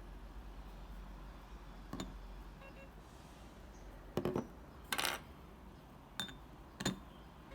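A handful of sharp clicks and clinks from small hard parts being handled, with a short rattle about halfway through.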